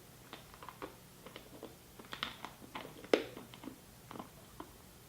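Mouth sounds of a large chili-filled tamarind hard candy being sucked and chewed: faint, irregular clicks and wet smacks, the sharpest about three seconds in.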